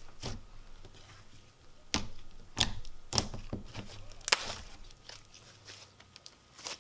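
Thick creamy slime mixed with cloud slime being squished, folded and pulled apart by hand, giving irregular sticky pops and crackles, loudest about halfway through.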